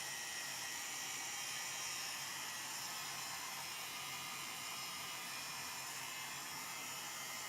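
Heat gun running steadily on a low heat setting, a constant hiss of blown air, shrinking shrink-wrap film down around a bundle.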